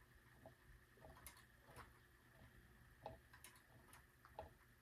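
Near silence with faint, irregular metallic ticks and clicks, about one or two a second, from battery-powered kinetic desk toys swinging their metal balls and arms, over a faint steady high whine.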